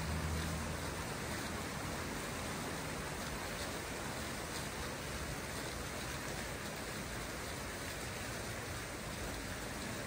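Water fountain splashing in a steady, even hiss like falling rain. A low hum fades away about a second in.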